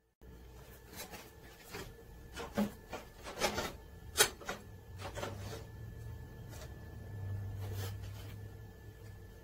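Flat metal bar being set and clamped in the vise of a small horizontal metal-cutting bandsaw: scattered metal clicks and knocks as the bar is positioned and the vise jaw shifted, the loudest about four seconds in, then rubbing as the vise handle is turned.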